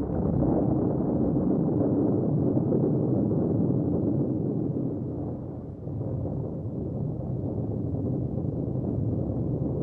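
Long, low rolling rumble of thunder, easing slightly about six seconds in.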